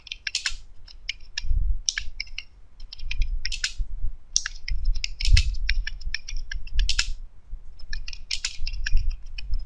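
Computer keyboard being typed on: quick, uneven runs of key clicks with short pauses between words, and low thuds under some of the keystrokes.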